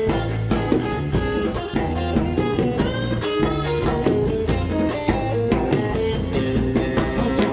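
Live rock band playing an instrumental break, with guitar over drums keeping a steady beat.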